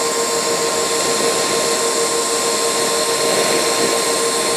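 TIG welding arc burning steadily as a bead is run along the joint: an even hiss with a steady mid-pitched tone underneath.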